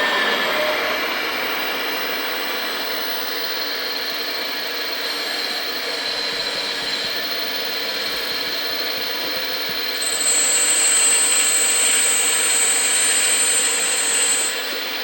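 Steady mechanical noise with a high-pitched whine that starts about ten seconds in and cuts off about four seconds later.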